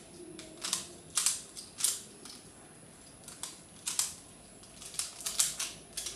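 Plastic Pyraminx puzzle being turned by hand: about ten sharp plastic clicks at uneven spacing, a lull about two to three seconds in, then a quick run of clicks near the end.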